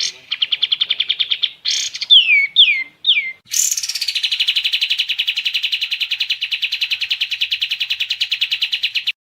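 Songbird known as kapas tembak singing: a rapid pulsing trill, a few quick down-slurred whistles, then a long, even rapid trill that cuts off suddenly near the end.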